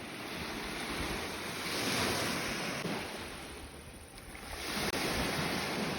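Sea waves washing onto the shore, two swells of surf noise about three seconds apart.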